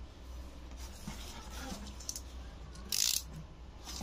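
A small cardboard parcel being handled and turned over, with a short rasp about three seconds in as a utility knife is brought to its packing tape. A steady low hum runs underneath.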